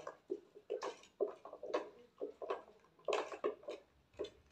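Wooden churning stick (madhani) stirring buttermilk with ice and water in an aluminium pot, in short irregular sloshing strokes, while the fresh butter separates and rises to the top.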